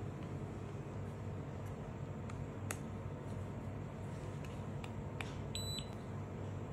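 Steady low electrical hum with a few faint clicks as the phone screen and its connector are handled, and one short electronic beep about five and a half seconds in.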